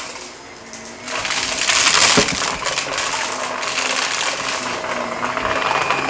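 Shark vacuum cleaner running over carpet, with grit and debris crackling and rattling as it is sucked up. The sound drops for about a second near the start, then comes back full.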